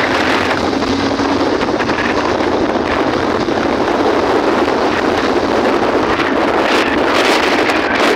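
Steady rush of wind on the microphone of a moving vehicle, with the vehicle's own running noise mixed in.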